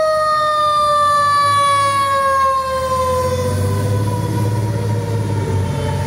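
Fire engine siren wailing: one long tone gliding slowly down in pitch. The truck's engine rumble grows louder about halfway through as it drives past.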